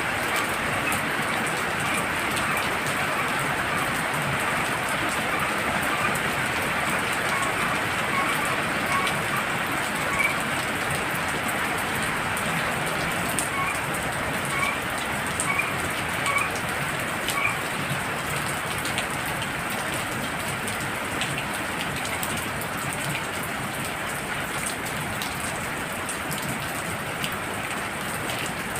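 Heavy rain falling steadily. Through the middle stretch a frog gives short rising chirps, about one a second.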